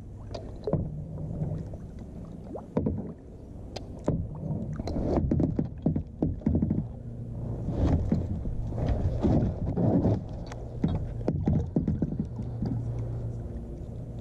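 Irregular knocks, clatter and rustling of gear being handled against a plastic kayak hull, over a low steady hum.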